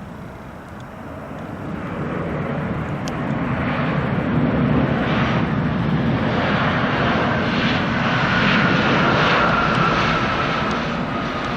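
Jet airliner passing low and close, its engine noise swelling over the first few seconds and then holding loud, with a whine that slides slowly downward in pitch in the second half.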